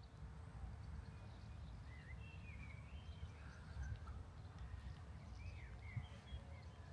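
Faint birdsong in open country: a few short chirps and warbled phrases about two seconds in and again near six seconds, over a low, uneven rumble.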